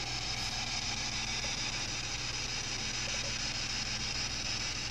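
Steady hiss with a low electrical hum underneath: the background noise of the recording in a quiet room, with no other sound rising above it.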